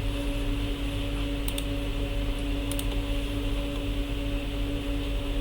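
Steady electrical hum and fan-like noise of a workbench, with two short light clicks about a second and a half apart.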